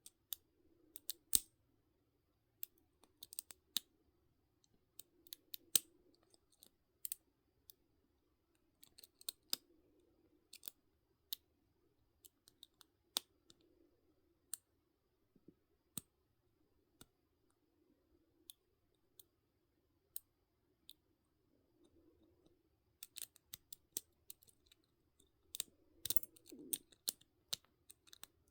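Small irregular metallic clicks and scrapes of a lock pick working the pins inside a lock, with a denser run of louder clicks near the end. A faint steady hum runs underneath.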